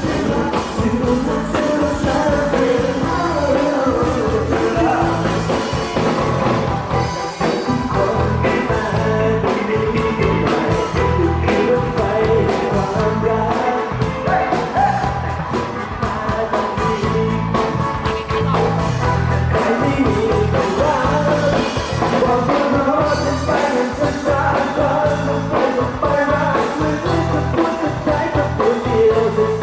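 Live pop-rock band playing with a lead vocalist singing: drums, bass, keyboard and electric guitar under the voice.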